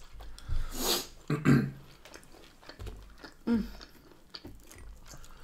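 People chewing a steak-and-chips dinner, with a few short sharp clicks and scrapes of cutlery on plates.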